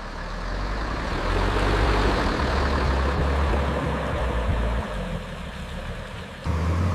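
Heavy vehicle engine running with a low, steady rumble, which changes abruptly about six and a half seconds in.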